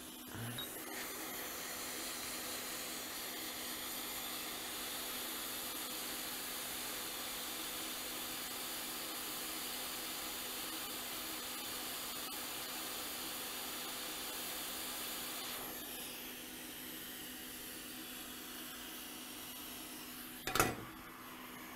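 Quick 861DW hot air rework station blowing a steady hiss of hot air on a logic board chip to melt its solder for removal. The hiss grows quieter about sixteen seconds in, and there is a short click near the end.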